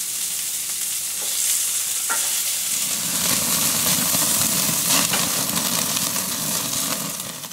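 Beef steaks sizzling on a grill over open flame, with an occasional sharp pop of fat. About three seconds in the sizzle grows fuller and a little louder as flames flare up around the meat.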